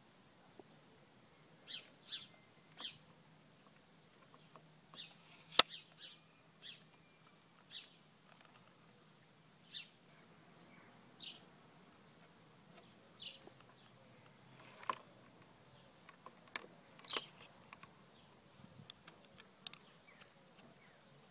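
Small birds chirping now and then in short, separate chirps. About five and a half seconds in there is one sharp, loud click from the cassette player being handled.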